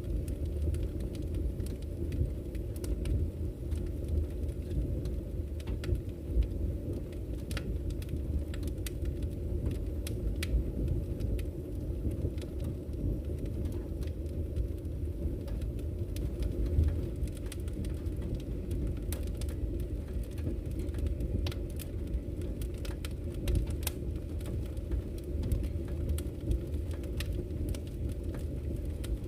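Burning firewood in a fireplace: a steady low rumble of the fire with frequent sharp, irregular crackles and pops.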